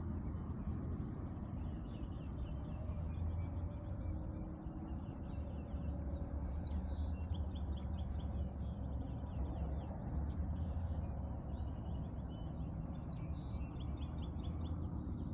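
Several small birds chirping and singing at sunrise in a dawn chorus, with short repeated high phrases throughout, over a steady low rumble.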